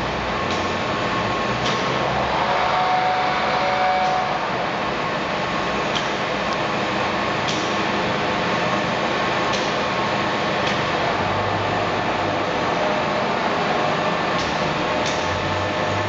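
Heavy PBR Legnano T 700 universal lathe running: a steady mechanical hum from the spindle drive and gearbox, with a brief whine about two seconds in and a few faint clicks.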